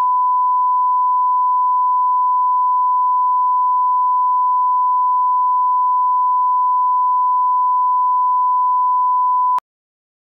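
1 kHz line-up test tone of a colour-bars test signal: one steady, pure beep that cuts off abruptly near the end.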